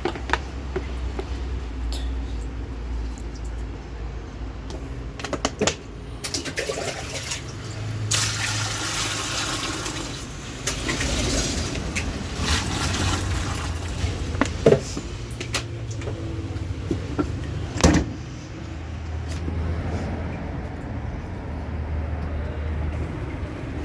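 Washing machine running with water rushing and sloshing. A low motor hum comes and goes in spells of a few seconds. A few sharp knocks stand out.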